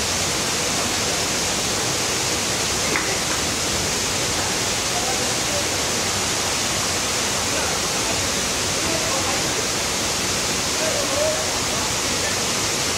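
Steady, loud rushing noise of a water treatment plant, with faint voices beneath it.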